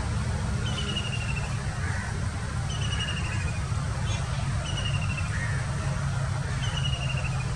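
Sri Lanka Railways Class S12 diesel multiple unit's engine running with a low, steady rumble as the train draws slowly toward the platform. A bird repeats a short, falling trill about every two seconds.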